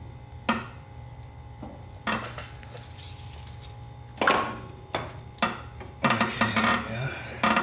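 Metal parts clinking and knocking against each other as a starter motor and its mounting bolts are worked into place by hand. The clinks are scattered singly at first, the loudest about four seconds in, then come in a quick flurry near the end. A steady low hum runs underneath.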